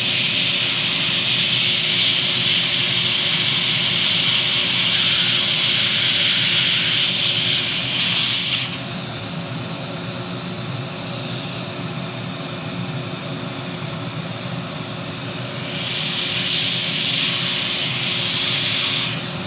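High-speed dental drill hissing as it cuts out an amalgam (mercury) filling, with the high-volume suction running steadily underneath. The drill runs for about the first half, stops, and starts again for the last few seconds.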